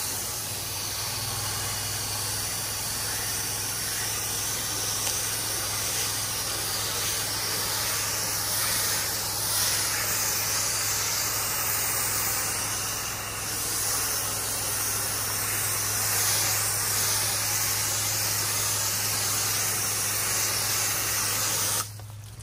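Pressure washer wand spraying a steady, hissing jet of rinse water against a house wall, over a steady low hum. The spray cuts off suddenly near the end as the trigger is released.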